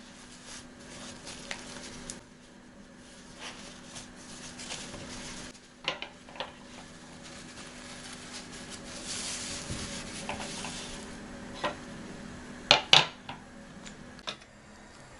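Kitchen clatter of dishes and cutlery: scattered light clinks and knocks, with the loudest pair of clanks close together near the end, over a steady low hum.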